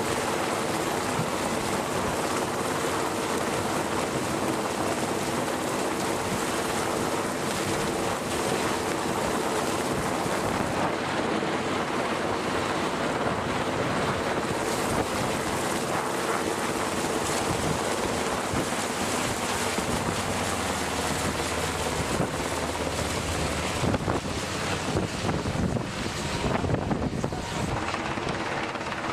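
Navy MH-60 Seahawk helicopter hovering, its rotor and turbine engines running steadily, with wind buffeting the microphone that gets gustier near the end.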